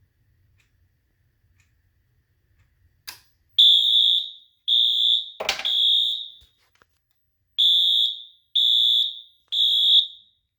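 Fire alarm sounder going off in the temporal-three evacuation pattern: high-pitched beeps in sets of three, a pause, then three more. The system has been put into alarm by a magnet test of a smoke detector. A click comes just before the first beep, and a knock sounds during the third.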